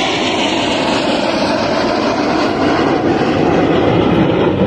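Jet engines of a formation of KAI T-50B aerobatic jets flying past, a steady rushing jet noise that swells slightly toward the end.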